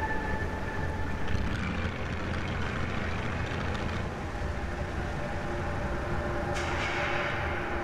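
A steady low rumble with a faint hiss over it; a rush of higher hissing noise comes in near the end.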